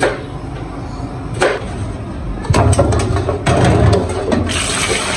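Kitchen handling sounds: a couple of sharp knocks, then clattering as bell peppers and a steel bowl are handled in a stainless-steel sink. Water starts running into the sink near the end.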